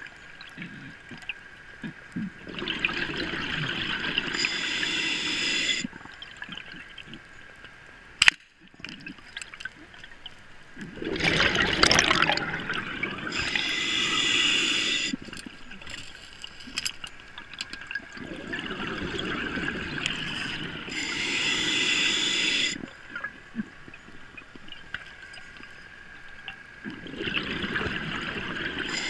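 Scuba diver breathing through a regulator underwater: hissing inhalations and bubbling exhalations alternating every few seconds, with one sharp click a little over eight seconds in.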